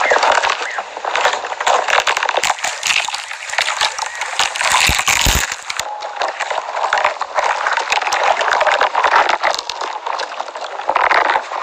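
Camel chewing cactus: a continuous wet crunching and crackling with many small clicks.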